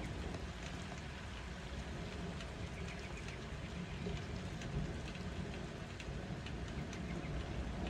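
Steady rain falling, with scattered drops ticking on the window glass and a low rumble of thunder underneath.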